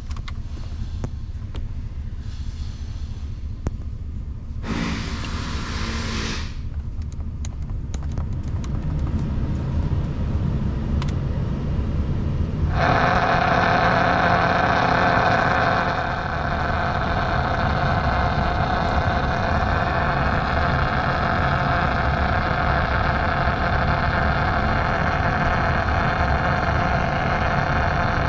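Ford 6.7L Power Stroke V8 turbo-diesel idling with a steady low rumble while the truck's factory radio is tried. There is a short hiss about five seconds in. From about thirteen seconds the cab speakers add a louder steady radio hiss and hum on top of the engine.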